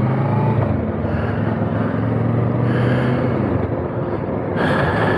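Motorcycle engine running at road speed under a rush of wind and road noise, with a louder burst of rushing noise near the end.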